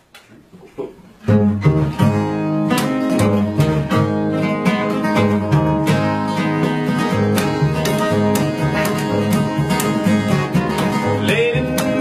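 Acoustic string trio, two acoustic guitars and a plucked upright double bass, playing an upbeat instrumental intro. After a few soft notes the whole band comes in together about a second in, and a singing voice enters near the end.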